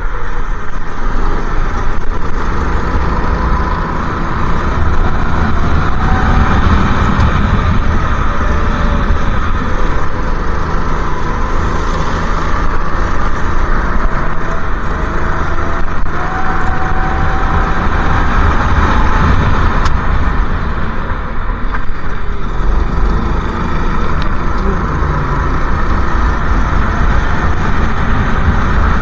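Go-kart engine running at racing speed and heard onboard, its pitch rising and falling faintly through the corners, under heavy wind rumble on the camera microphone.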